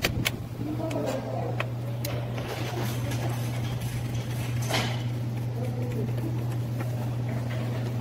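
Hand tools working on engine parts: pliers and a screwdriver make a few sharp metallic clicks against hose clamps and the throttle body bracket. A steady low hum runs under them.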